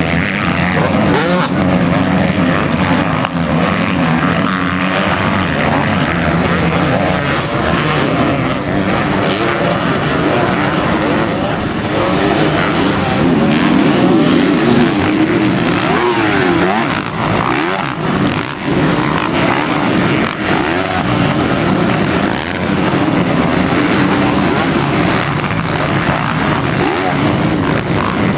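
450-class motocross bike engines racing on a dirt track, revving up and dropping back as the riders accelerate, shift and brake through turns and jumps, loudest around the middle.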